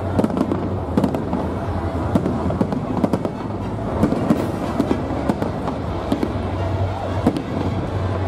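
Aerial fireworks display: many shells bursting in quick, irregular succession, a string of sharp cracks.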